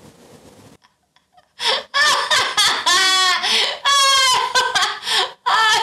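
A young woman laughing hard in a run of high-pitched bursts, starting after a short quiet about a second and a half in.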